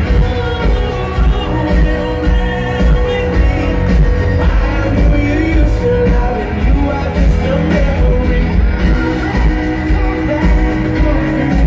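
Live band music with singing, played loud through an outdoor concert sound system and heard from within the audience, with a steady heavy bass pulse.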